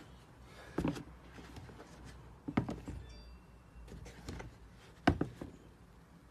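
Handling noise as a pair of sneakers is turned and moved around on a shoebox: a few dull thumps and knocks as the shoes are set down and bump the box, the loudest about five seconds in, with soft rustling between them.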